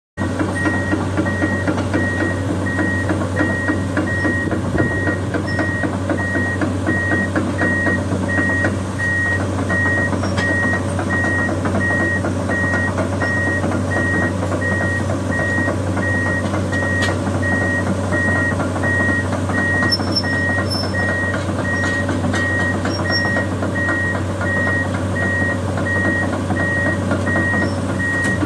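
Komatsu PC200-8M0 excavator's six-cylinder diesel engine running steadily while its travel alarm beeps in an even, rapid series, more than once a second: the sign that the machine is moving on its tracks.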